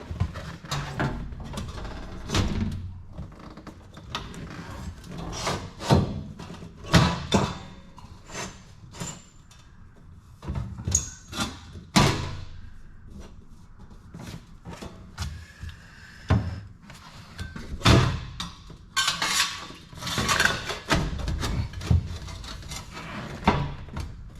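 Irregular knocks, clunks and rattles of objects being handled, some sharp and loud, with a low rumble between them and a quieter stretch about ten seconds in.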